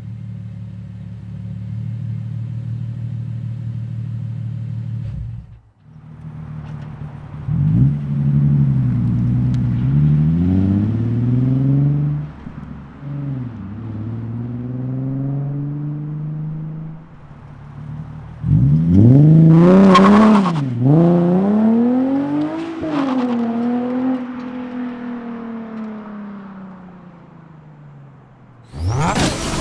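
Nissan 370Z's 3.7-litre V6 through a race single exhaust: a steady note for the first few seconds, then repeated revs rising and falling in pitch, the two biggest about two-thirds of the way through, followed by a long fall in revs. A short, loud burst near the very end.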